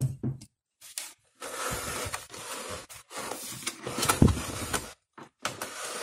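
Plastic base of a ceramic tower heater scraping and rubbing on a wooden desktop as it is turned around by hand, for a few seconds in the middle, with light knocks of handling at the start and near the end.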